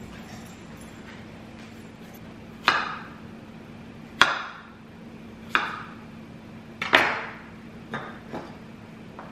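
Chef's knife coming down sharply on garlic cloves on a wooden cutting board: four hard knocks about a second and a half apart, each ringing briefly, then two lighter taps near the end.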